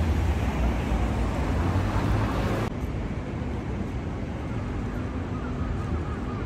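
City street traffic ambience: a steady wash of road and engine noise from passing cars and taxis, with a low hum for the first couple of seconds. About two and a half seconds in, the sound changes abruptly and becomes thinner and less hissy.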